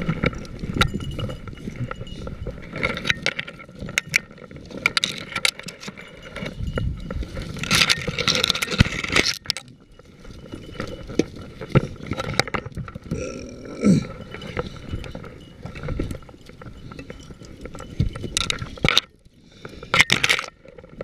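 Close rustling and scraping as a hunter pushes on foot through dry grass and bare brush, branches dragging across his clothing and shotgun, with scattered twig snaps and clicks. A longer burst of rustling comes about eight seconds in, and another near the end.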